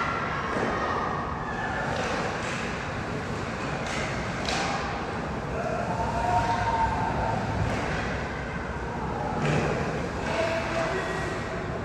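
Ice hockey game play in a rink: a steady hiss of skates on the ice, broken by a few sharp knocks of sticks and puck, with brief raised voices about halfway through and again near the end.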